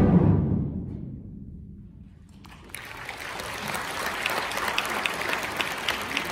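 A wind ensemble's final chord cuts off and rings away in the hall over about two and a half seconds. Then the audience bursts into steady applause.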